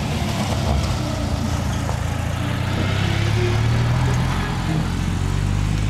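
The air-cooled flat-twin engine of a 1977 Citroën 2CV AK400 van running steadily as the van drives along a rough dirt track.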